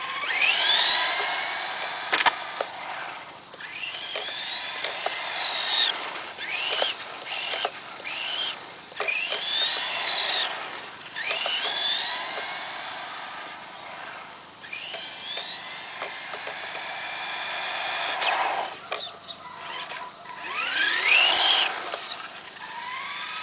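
Electric motor and gears of a Tamiya TT-01 radio-controlled Subaru Impreza whining as it drives, the pitch sweeping up with each burst of throttle and falling away as it slows, again and again. It is loudest about a second in and near the end.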